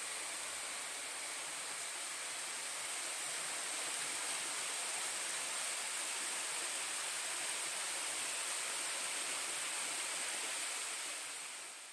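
Mountain stream water rushing steadily over rocks, a continuous even hiss, fading out near the end.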